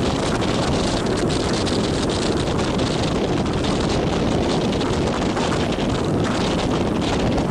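Strong sea wind blowing across the microphone, over steady surf breaking on a rock breakwater.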